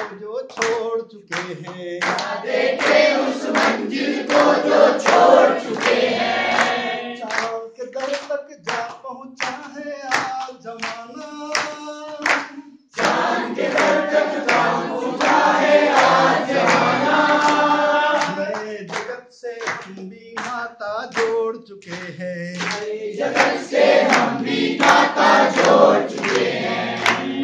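A group singing together in phrases, accompanied by steady rhythmic hand clapping.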